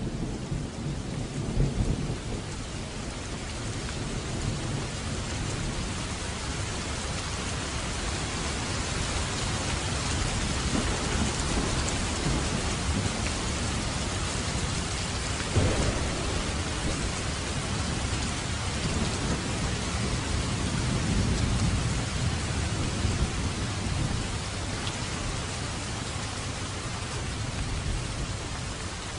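Steady rain falling on a surface, with low rolls of thunder. The thunder swells in the first few seconds and again about two-thirds of the way through, and there is one sharper clap about halfway.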